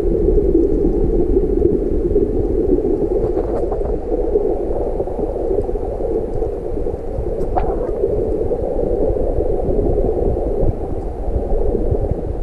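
Muffled, steady rush and rumble of water picked up by a camera submerged in its waterproof housing, with a couple of faint clicks.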